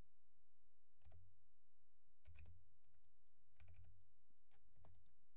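Computer keyboard keys tapped in four short clusters of a few strokes each, roughly a second apart, as numbers are typed in.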